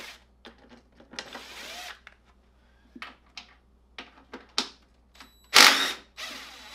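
Hand tools clicking and clinking on the metal parts of a dirt bike during a teardown: a scatter of sharp clicks and short bursts of noise, the loudest about five and a half seconds in.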